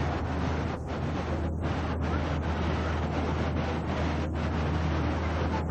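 Steady rushing noise of wind on a camcorder's microphone, over a low steady hum, with a few brief dropouts in the upper sound.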